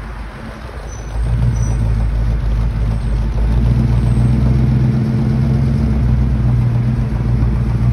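Vintage Ford pickup engine running low and steady as the truck drives, its note becoming louder about a second in and then holding.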